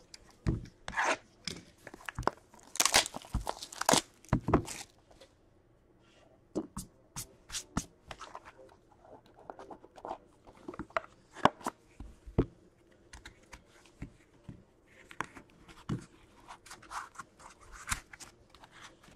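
Shrink-wrap and packaging of a sealed box of hockey trading cards being torn open and the cards handled: irregular tearing, crinkling and small clicks, with a quiet second about five seconds in.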